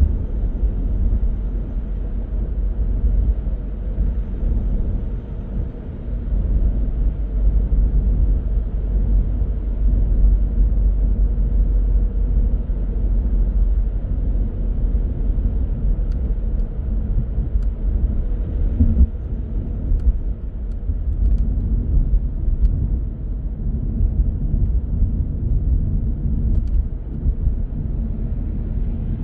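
Car driving, with the steady low rumble of engine and tyre noise on the road.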